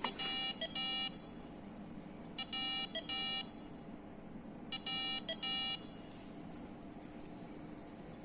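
Buzzer on a homemade carbon monoxide and smoke detector beeping in pairs, three pairs about two and a half seconds apart, then stopping. It is the alarm for carbon monoxide and smoke levels in the car being too high.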